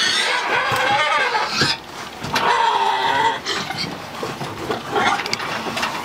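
Domestic pigs squealing: two long, loud squeals in the first half, then fainter sounds from the pen.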